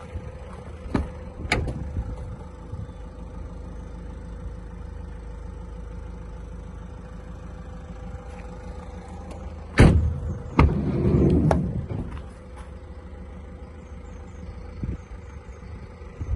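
Van doors being worked: a couple of clicks, then a loud door slam about ten seconds in, followed by a second knock and a second or so of rattling, over a steady low hum.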